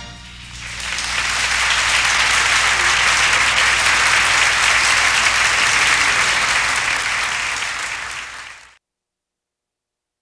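Studio audience applauding, building up over the first second, holding steady, then tapering a little and cutting off abruptly near the end.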